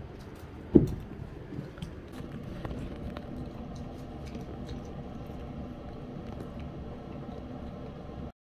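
A cat eating wet food from a glass bowl: small chewing and lapping clicks over a steady background hum, with one loud thump about a second in.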